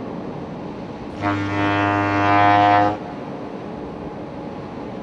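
Ship's horn sounding one steady, deep blast of about a second and a half, starting about a second in, over a steady background rumble with a faint hum.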